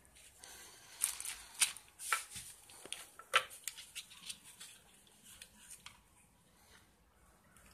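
Close handling sounds from fitting a cord strap onto a pair of eyeglasses: small clicks and rustles of the frame, cord fittings and plastic packaging. They are busiest in the first half and thin out after about six seconds.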